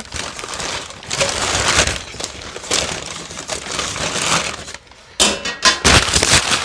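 Packaging crinkling and rustling as a boxed part is handled and unwrapped, with a few sharper, louder knocks near the end.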